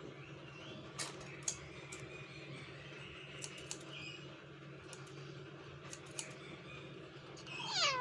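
Several sharp clicks scattered over a steady low hum, with faint chirps in the background and a quick, steeply falling call near the end.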